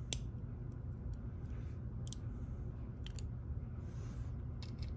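Scattered small, sharp clicks of lock pins and a brass lock cylinder being handled as the pins are picked out one by one, some in quick pairs, over a low steady hum.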